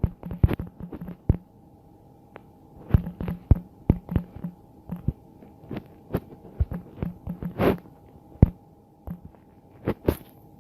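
A woman's mouth and throat noises: a scatter of short clicks and gulps, some with a brief low croak, and one slightly longer, louder one a little past the middle, the kind made while gulping air and burping.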